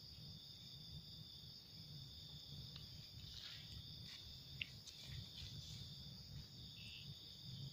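Faint, steady chirring of crickets, with a low rumble and a few soft clicks.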